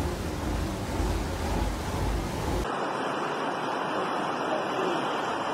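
Rumbling hiss with no clear source that cuts off abruptly about two and a half seconds in. It gives way to a steady rushing of fast-flowing floodwater surging along a street.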